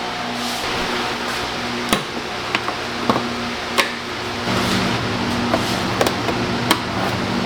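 Scattered sharp clicks and light knocks from the plastic air box and filter being handled during an air filter change, over a steady low hum that drops in pitch about four and a half seconds in.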